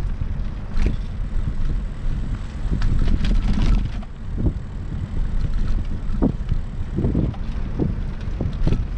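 Wind buffeting the microphone while riding a bicycle, a dense uneven rumble, with scattered knocks and rattles from the bike going over the road.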